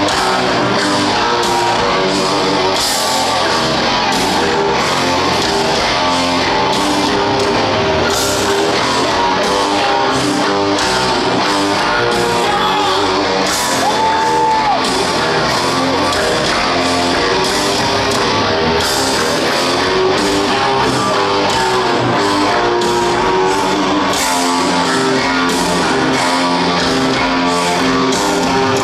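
Heavy metal band playing live through a large concert PA: a distorted electric guitar and bass riff over a drum kit, steady and loud throughout, heard from the audience.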